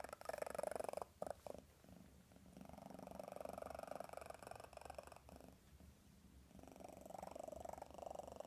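Domestic cat purring loudly. The purr swells and fades with its breathing, in three long pulses with short breaks between.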